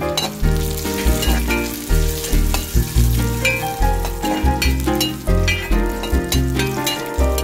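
Coconut pieces, cashews and raisins sizzling in ghee in a pan while a spatula stirs and scrapes them, with short clicks from the spatula against the pan. Background music with a steady beat plays underneath.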